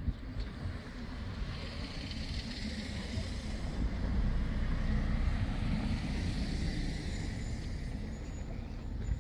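A motor vehicle passing by: its noise swells to a peak about halfway through and fades again, over a steady low rumble.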